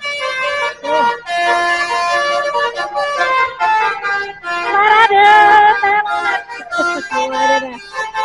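Telolet horn on a bus: a multi-tone musical air horn playing quick tunes of stepped notes in several blasts with short breaks between them, the loudest about five seconds in.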